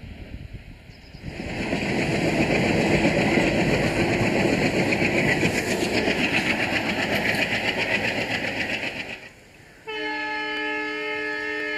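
ALCO diesel locomotive running close by, a loud engine drone mixed with wheel and rail clatter that cuts off about nine seconds in. About ten seconds in, a locomotive horn sounds one steady multi-tone chord.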